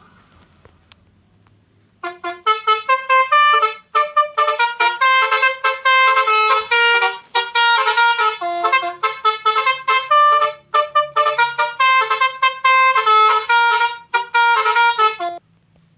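A fast melody of short notes played on a bright, trumpet-like horn, starting about two seconds in and stopping just before the end.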